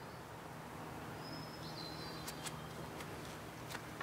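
Quiet outdoor background with a thin, short bird call a little over a second in, and a few light clicks of small metal parts being handled.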